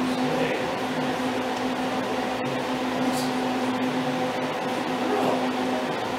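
Steady machine hum: a low drone with a few higher steady tones above it, holding an even level throughout.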